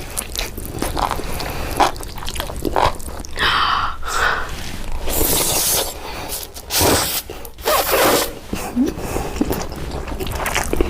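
Close-miked eating sounds: irregular bites, crunching and chewing with scraping noises.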